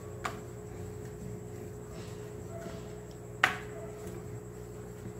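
Rolling out pizza dough with a rolling pin on a plastic rolling board: two sharp knocks of the pin against the board, one just after the start and a louder one about three and a half seconds in, over a steady low hum.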